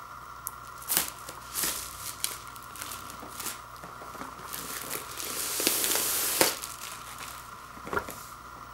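Plastic shrink wrap being peeled and torn off a cardboard LP box set, crinkling in short bursts, with one longer stretch of tearing a little past the middle.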